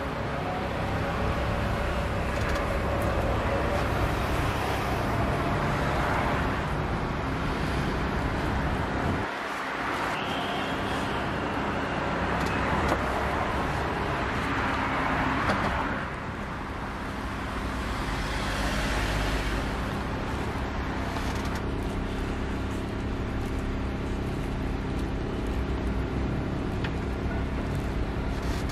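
Road traffic passing close by: a continuous wash of car and heavier vehicle noise with a low rumble, swelling and easing as vehicles go by.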